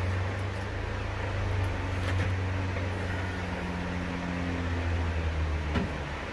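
A steady low mechanical hum, cut off by a sharp click near the end.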